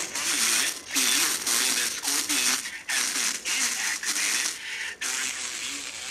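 Vega 404 transistor radio playing an AM broadcast voice through its bad speaker, heavily distorted with a harsh buzz over the whole range. The repairer suspects the speaker's voice-coil turns have come off their former.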